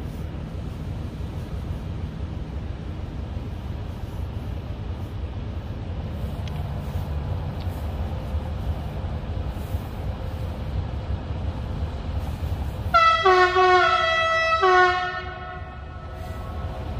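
Siemens Smartron electric locomotive's horn sounding a quick run of short blasts in two alternating pitches, about thirteen seconds in, over a steady low rumble.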